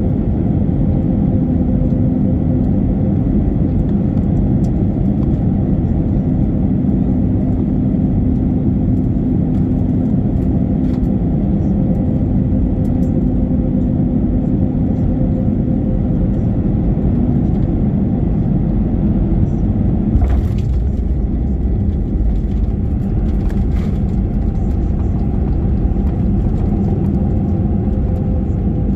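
Cabin noise of a British Airways Airbus A320 landing, heard by the wing: steady engine and air noise with a faint hum. About twenty seconds in a brief jolt marks the touchdown, and a heavier low rumble follows as the plane rolls out on the runway.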